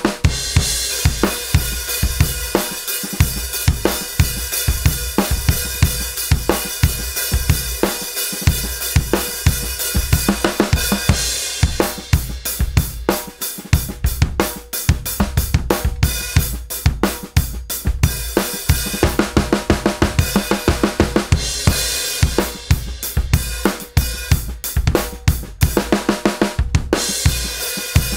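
Drum kit groove on a 20-inch Rogers Powertone bass drum struck with a hard felt beater, its resonant head tuned a perfect fourth above a loose batter head for a punchy, low kick, with snare drum backbeats, hi-hat and cymbals.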